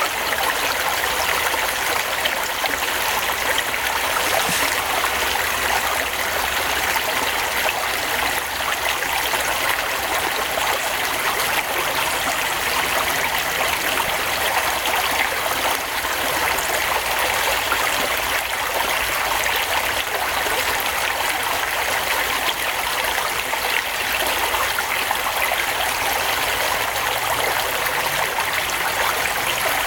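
Steady rushing noise, even and unbroken throughout, like running water.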